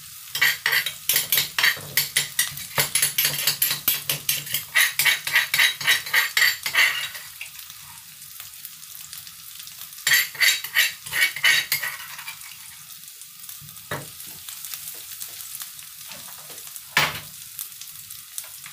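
Metal spoon scraping and stirring rapidly in a wok of dried chilies and garlic frying in oil, over a steady sizzle. The stirring comes in two runs, about seven seconds and then about two seconds long, followed by two single knocks against the pan.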